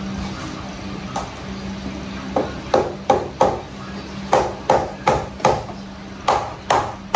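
A small hand tool, likely a mallet, tapping a large porcelain floor tile being laid: about a dozen sharp knocks, two or three a second, starting about two and a half seconds in. A steady low hum runs underneath.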